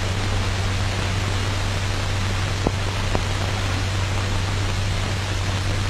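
Steady hiss with a constant low hum from an old film's soundtrack, and two faint clicks about two and a half and three seconds in.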